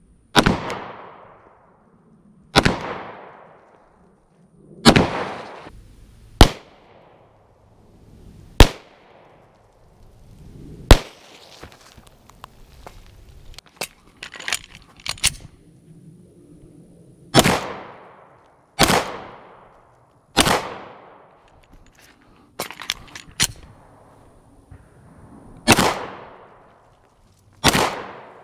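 Handgun shots fired one at a time, a second or two apart, each sharp crack trailing off in a long echo, with fainter cracks between them partway through.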